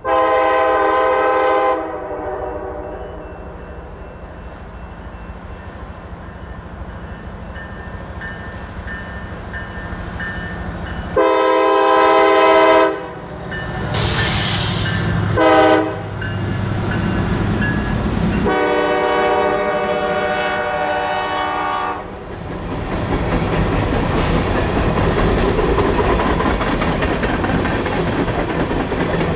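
Diesel locomotive horn on the lead unit, Norfolk Southern SD70ACC 1810, sounding the grade-crossing signal: long, long, short, long, over the steady drone of the locomotives' diesel engines. From about 22 seconds in, the locomotives and loaded coal hoppers roll past, wheels clicking over the rails.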